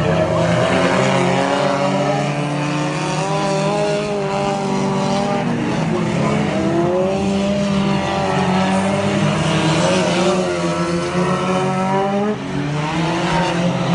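Several front-wheel-drive race car engines running hard together, their pitch rising and falling as the drivers get on and off the throttle through the figure-8 turns.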